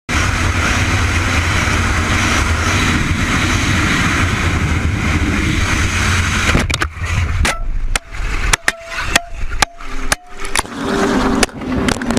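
Steady motor-vehicle engine and road noise. About halfway through it gives way to a series of sharp knocks and clicks with a few short tones in between.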